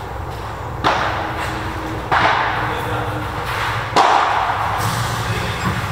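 Padel rackets hitting the ball in a rally, starting with a serve: three sharp pops a second or two apart, the last the loudest, each ringing on in the echo of the large covered court.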